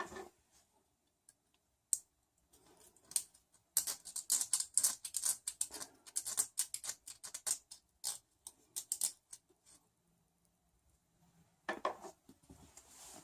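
Nylon zip ties being pulled through their locks, a dense run of rapid ratcheting clicks for several seconds in the middle. Duller plastic handling sounds come near the start and again near the end.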